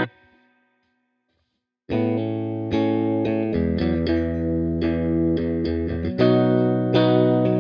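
Epiphone Les Paul Black Beauty three-humbucker electric guitar played clean, strumming chords. The ringing chord is cut off right at the start, there is a short gap of silence, and about two seconds in the playing resumes with a run of strummed chords that change several times.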